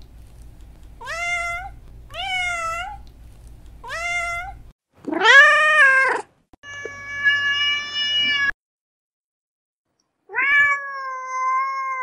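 Domestic cats meowing: three short, high meows about a second apart, then a louder, longer meow and a drawn-out steady one. After a pause of about two seconds comes one more long meow near the end.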